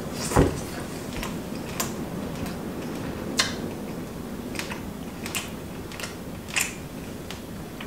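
A person chewing a mouthful of hot meat, with a few scattered, irregular mouth clicks and lip smacks over a steady low room hum.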